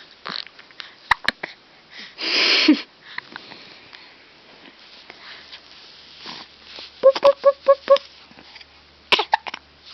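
A baby hiccuping, with short sharp hics and breathy sniffling sounds, including a louder breathy burst a couple of seconds in. Near the end comes a quick run of five short pitched sounds.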